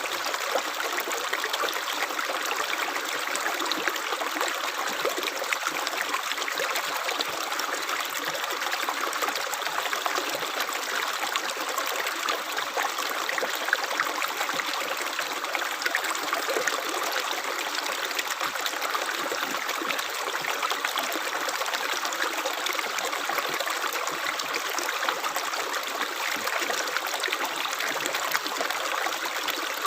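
Running water trickling and splashing steadily, a continuous bright rushing with little deep rumble.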